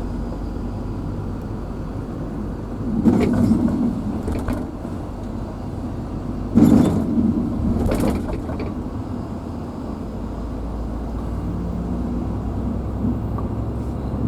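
Steady low rumble of a vehicle driving, heard from inside, with two louder rattling jolts about three seconds and seven seconds in.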